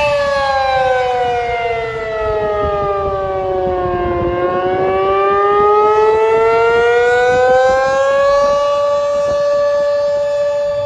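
Outdoor tornado warning siren sounding. Its tone falls in pitch for about four seconds, then rises back and holds steady from about eight seconds in. It signals a tornado warning in effect.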